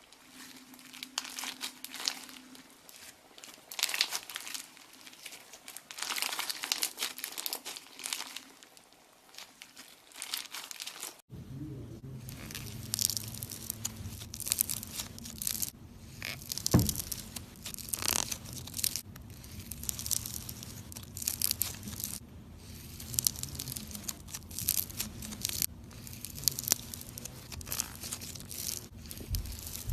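Crunchy slime being squeezed and pressed by hand, giving repeated crackling, crinkling crunches in short bursts.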